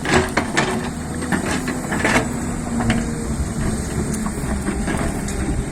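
Hyundai excavator's diesel engine running steadily, with several sharp knocks and clanks scattered through, as of the bucket working rock and soil.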